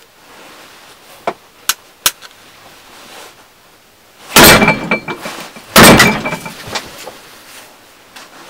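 Kitchen scissor blades stabbed hard into a plywood board twice, about a second and a half apart. Each stab is a loud, sudden hit with a brief ringing tone, and a few light clicks come before them.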